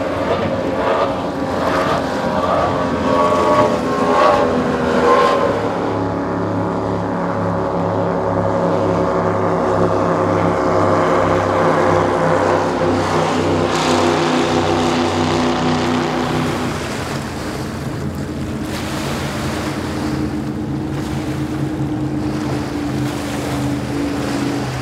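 Triple Mercury 300R outboards on a performance catamaran running at speed past, then the twin 502 big-block V8s of a Fountain 42 Lightning offshore powerboat running past at speed. The V8 note drops in pitch about two-thirds of the way through as the boat goes by.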